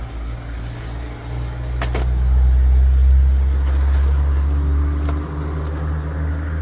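Low engine rumble of a nearby motor vehicle, swelling in the middle and dropping away near the end, with a single sharp metallic click about two seconds in.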